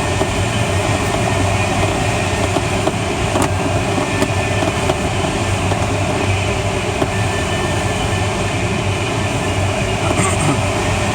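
Steady rushing airflow noise inside the cockpit of a Schleicher ASK21 glider in flight, with no engine. The wind noise over the canopy holds even throughout with a low rumble underneath.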